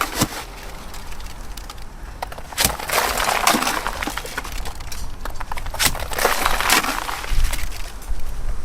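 Wet-dash roughcast mix, cement with small stones, being thrown off a trowel onto a wall: irregular gritty splats and scrapes, several times, with sharp clicks between.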